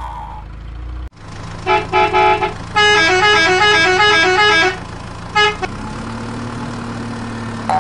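Dubbed-in vehicle horn sound effect: a few short honks, then a horn playing a quick tune of stepping notes for about two seconds, and one more honk. From about six seconds in, a steady engine-like hum takes over.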